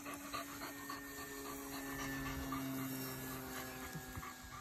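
Steady hum of a distant engine, with a second, lower tone joining from about two seconds in for a second and a half, over faint rustling of a dog running through grass.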